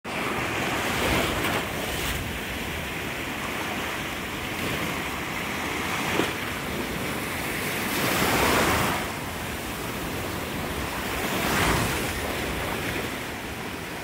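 Gulf surf: waves breaking and washing up the beach in a continuous rush that swells and eases every few seconds, loudest about eight seconds in.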